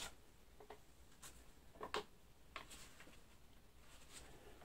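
Faint, scattered light ticks and rustles, about half a dozen spread over a few seconds, from gloved hands handling a sheet of paper.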